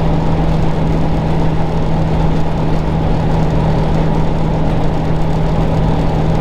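Cummins Signature Series diesel in a 1999 Peterbilt 379 running steadily: a constant low drone with a strong hum, heard from inside the truck. It is an engine whose owner thinks it will have to be overhauled.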